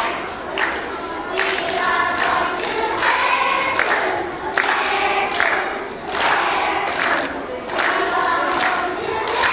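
A group of children singing together in unison, with a sharp hit about every 0.8 s keeping a steady beat.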